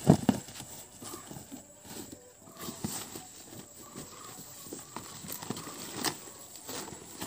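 A cardboard shipping box being opened by hand, its flaps pulled back and pressed down: scattered thumps and scraping rustles, the loudest thump just after the start.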